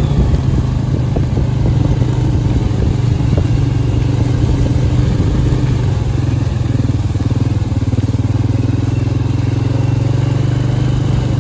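Four-wheeler (ATV) engine running loud and steady, holding an even speed with no revving.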